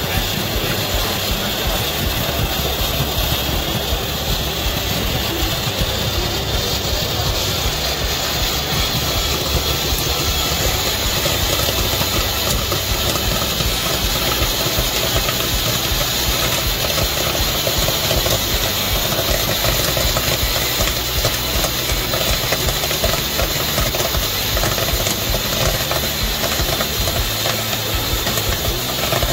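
Commercial popcorn machine running: a steady hiss with many small pops of kernels bursting in the stainless-steel kettle.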